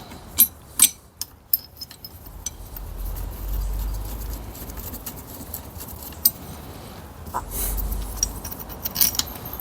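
Metal tools and steel puller parts clinking and tapping as they are handled and fitted, in a few sharp clicks with a dull low rumble of handling between them.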